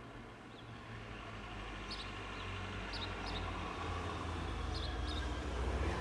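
A few short bird chirps over a low rumble of road traffic that slowly grows louder.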